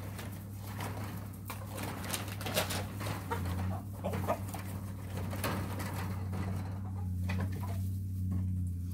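Chickens clucking and squawking in short, scattered calls, worked up over meat scraps being fed to them, over a steady low hum.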